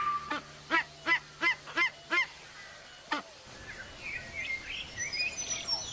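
A bird giving a fast run of short calls, about three a second, for some two seconds, then one more call a second later; after that, faint high chirps.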